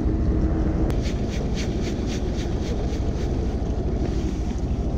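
Steady low rumble of wind on the microphone aboard a small fishing boat. About a second in there is a sharp click, followed by a quick run of light ticks, about five a second, for a couple of seconds.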